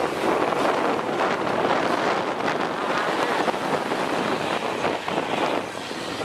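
Nissan Diesel UD truck running, a steady dense noise with heavy wind buffeting on the microphone.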